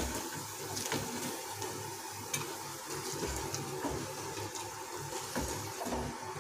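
Faint sizzling of hot oil and ketchup sauce in a nonstick frying pan, with a few light clicks and scrapes as a silicone spatula lifts fried dhokla pieces out onto a steel plate.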